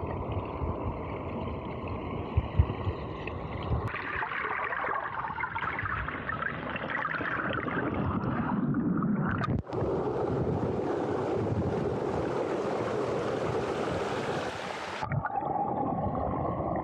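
Hot spring water rushing and gurgling in a steady noisy wash, changing character abruptly about four, ten and fifteen seconds in.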